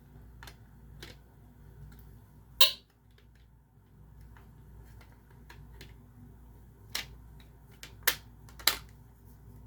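Sharp plastic clicks and knocks from a vintage smoke alarm's brown plastic housing being handled. They are scattered, the loudest about two and a half seconds in and a few more near the end.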